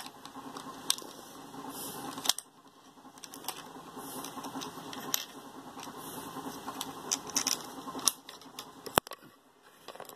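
Small plastic clicks and scrapes as fingers fumble a wireless mouse's USB receiver into a laptop's USB port, with one sharp click about nine seconds in. A low steady hum underneath stops about two seconds in.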